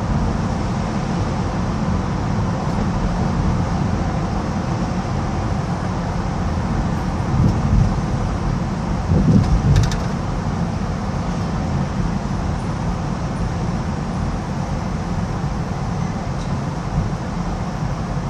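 Steady road and traffic noise of a car driving through a road tunnel, a low droning rumble of tyres and engines, with a brief swell about halfway through.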